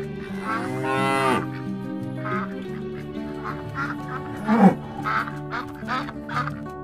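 Background music with a string of honking, goose-like calls over it. The first is a long arching call about half a second in, then several shorter honks, and a loud swooping one past the middle.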